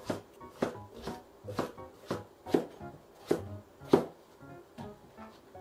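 Kitchen knife chopping an eggplant into chunks on a cutting board, about two knocks a second, the loudest about four seconds in.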